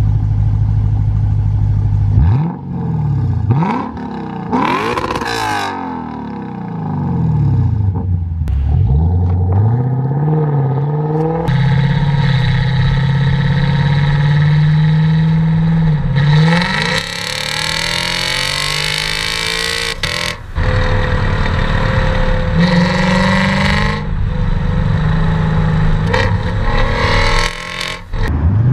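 Lexus RC F's 5.0-litre V8 through an Armytrix header-back exhaust with its valves open: idling, then several quick revs that rise and fall. From about eleven seconds in the car is driven, with the engine pulling steadily and then two hard accelerations, a long one past the middle and a shorter one a few seconds later.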